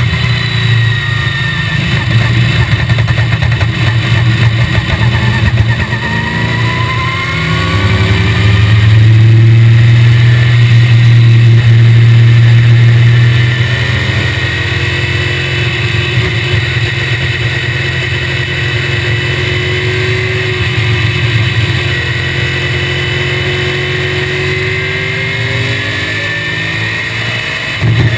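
1965 BTM Cheetah roadster's small-block Chevrolet V8, heard from the cockpit. It picks up speed about six seconds in, runs loud for about five seconds, then eases back to a steady, lower drone, and rises again near the end.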